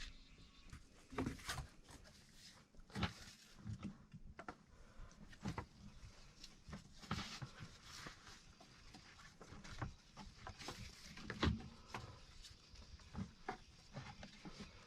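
Irregular clicks, knocks and rustles of things being handled at close range, a few sharper knocks standing out.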